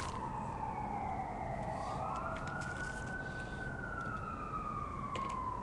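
A siren wailing, its pitch sliding slowly down, rising again about two seconds in, then falling slowly.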